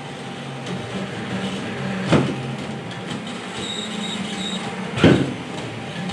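Valkyrie humanoid robot's electric joint motors humming, the low tones shifting as it moves, with two thuds of its feet coming down on plywood, about three seconds apart.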